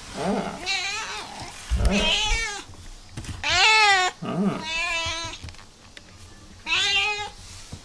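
Domestic cat meowing repeatedly, about six drawn-out "naa" calls, each rising and then falling in pitch. These are demand meows, which the owner takes as the cat asking to be let into the next room.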